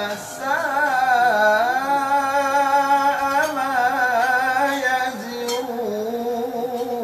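A man reciting the Quran in melodic tarannum style: long held notes with wavering ornaments, running as one continuous phrase that settles onto lower notes near the end.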